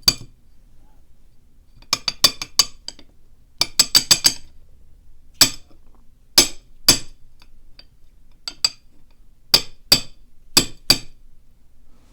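Small metal lock pins clinking as they are shaken and knocked out of the plug of a pin-in-pin Mul-T-Lock-style cylinder, which is not giving them up easily. There are quick runs of sharp clinks early on, then single clinks and pairs about a second apart.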